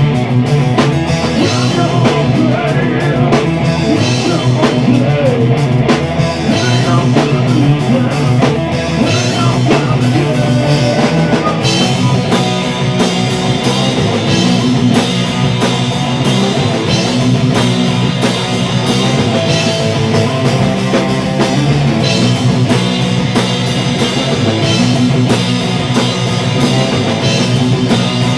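Rock band playing an instrumental passage: electric guitar, electric bass and drum kit, with the cymbals growing louder about twelve seconds in.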